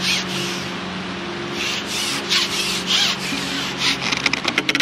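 Carbon fishing pole and tackle rubbing and scraping as the pole is worked while playing a lively hooked carp: repeated rasping strokes that quicken into rapid scratching near the end, over a steady low hum.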